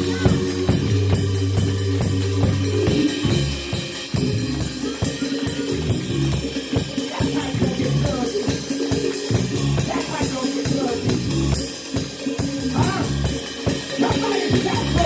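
Church band music, with a drum kit playing a steady beat on bass drum and snare over sustained low notes; the low notes drop out about three seconds in.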